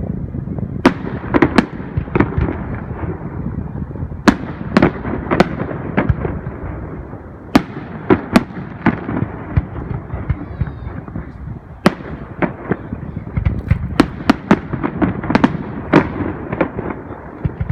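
Fireworks display: aerial shells bursting in quick succession, sharp bangs one or two a second over a continuous rumble of more distant explosions, with a brief lull midway.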